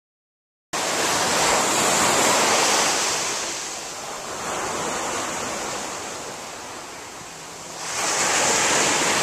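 A loud, even rushing noise cuts in abruptly just under a second in. It eases off through the middle and swells again near the end.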